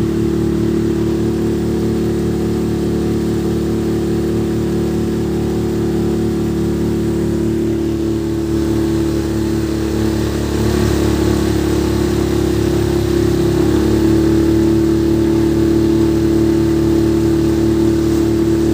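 Motorboat engine running steadily under way, with a fast low pulsing and a slight shift in pitch part way through.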